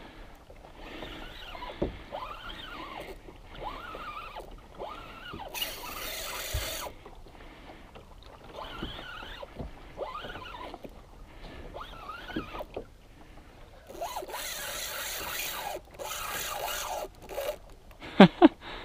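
Spinning reel being cranked while a hooked fish is fought from a plastic kayak: a rising-and-falling whine roughly once a second. There are two longer stretches of rasping noise, about six and fifteen seconds in.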